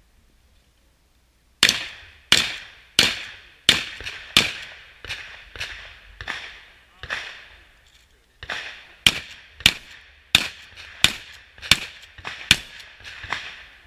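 A rapid string of shotgun shots, starting about a second and a half in, roughly one every two-thirds of a second, with a few weaker shots in the middle of the string.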